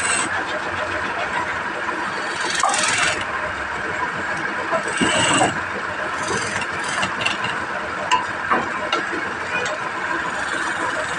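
Wood lathe running steadily, with a turning tool cutting the spinning wood in a few brief, louder passes.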